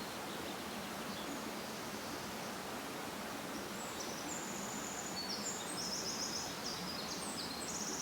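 Steady rustling hiss of forest ambience, with high-pitched bird chirps and fast buzzy trills joining about halfway through.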